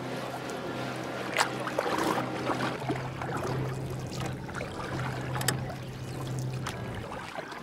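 A boat's motor humming steadily over rushing and splashing water from the wake; the hum stops about seven seconds in. A couple of sharp knocks stand out above it.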